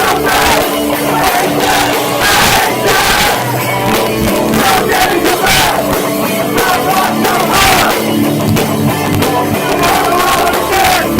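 Hardcore band playing live: loud distorted guitars and pounding drums, with the crowd shouting along. The sound is harsh and overloaded through a cheap cell phone's microphone.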